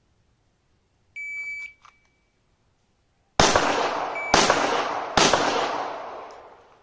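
A shot timer beeps once, then about two seconds later a pistol fires three shots just under a second apart, each followed by a long ringing echo that fades out.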